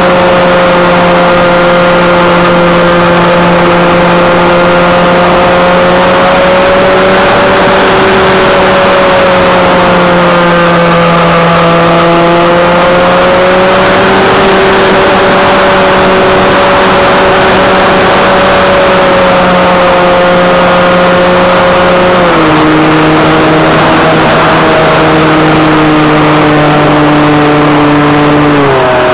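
Model airplane's motor and propeller, heard through a cheap key-chain camera strapped to the plane's nose, running as a very loud, harsh droning hum. The pitch wavers slightly with the throttle and steps down twice, once about two-thirds through and again near the end.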